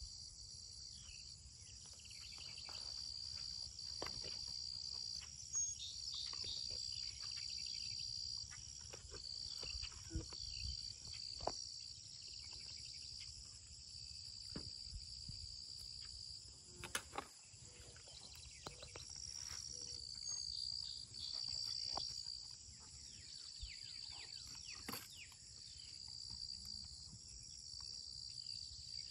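Insects chirping in repeated high trills of about a second each, over a steady high-pitched whine, a low rumble and scattered soft knocks.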